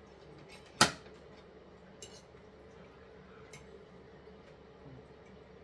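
Cutlery striking ceramic plates while eating: one sharp clink a little under a second in, then a few faint taps, over a faint steady hum.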